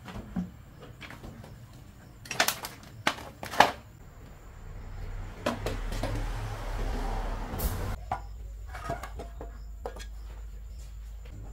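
Scrap metal parts being handled: a cluster of sharp clanks and knocks a couple of seconds in, then a few seconds of scraping noise, with scattered lighter clicks after.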